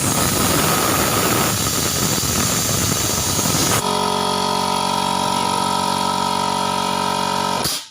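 Air compressor cycling back on at its cut-in pressure of 60 after being set to cut out at 90. About four seconds of loud hissing noise change to the pump motor running with a steady hum, which stops suddenly near the end.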